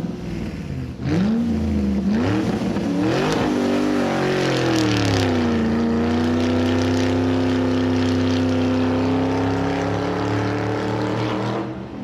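Car engine revving, its pitch swooping up and down a few times, then settling into a steady drone that fades out near the end.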